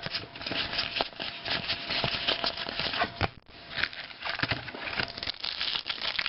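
Crinkling and tearing of a trading card pack wrapper as it is opened by hand: a dense run of crackles and small clicks, with a brief pause a little past halfway.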